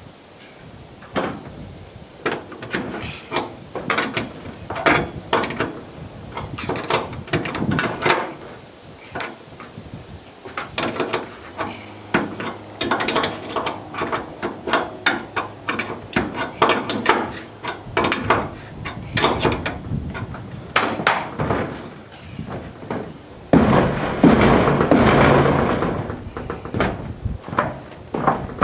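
Irregular metallic clicks, knocks and clanks of solar racking rails and their fittings being handled and fastened, with a louder, rougher stretch of noise near the end.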